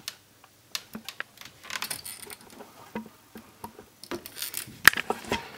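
Scattered light clicks and rustles of handling, coming irregularly, with a louder cluster and one sharper click near the end.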